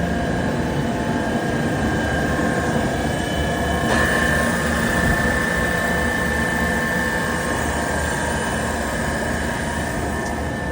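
Carrier chiller running during its spring startup: a steady machine drone with a high whine, which rises slightly and grows stronger just after a brief click about four seconds in.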